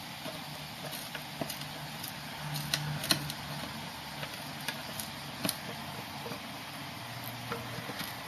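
A cat's teeth and claws on a wooden panel: scattered light clicks and knocks as it bites and paws at the edge, the sharpest about three seconds in, over a steady hiss.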